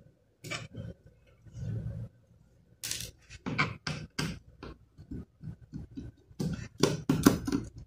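Irregular small clicks, taps and scrapes of a screwdriver working the screws out of an Asus laptop's plastic bottom cover, with the small screws being handled.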